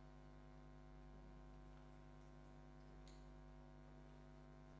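Near silence with a faint steady electrical mains hum, and a faint click about three seconds in.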